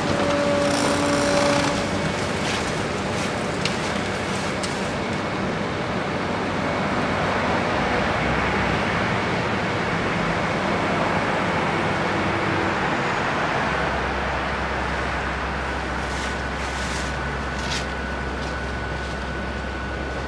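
Caterpillar 385 long-front demolition excavator at work, its Cat 3456 diesel engine and hydraulics running steadily under load while the demolition tool breaks up concrete floor slabs, with scattered sharp cracks and clatter of falling debris. A deeper steady drone sets in about two-thirds of the way through.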